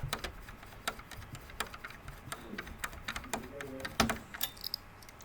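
Irregular small metallic clicks and ticks of a screwdriver working screws out of an all-in-one PC's metal motherboard cover.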